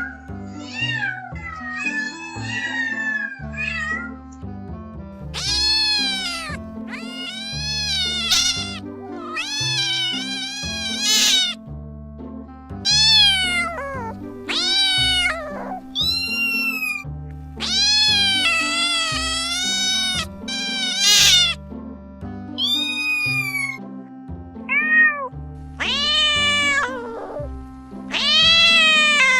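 Cats meowing over and over, about one meow every second or two, each call rising and falling in pitch, some high and thin. Background music with a steady bass plays underneath.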